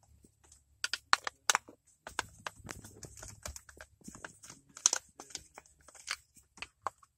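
Irregular clicks and knocks of a plastic distributor cap and a screwdriver being handled, with a few louder taps about a second and a half in and near five seconds in.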